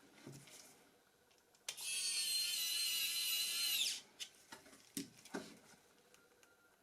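Nokia E71 mobile phone giving a steady electric buzz for about two seconds, dropping slightly in pitch as it stops, followed by a few light clicks.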